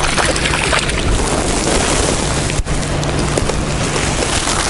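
Wind buffeting the microphone in a steady rush, with a hooked trout splashing at the water's surface near the start.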